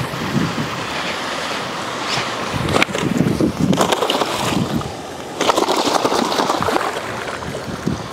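Water splashing and sloshing in irregular bursts, with wind on the microphone.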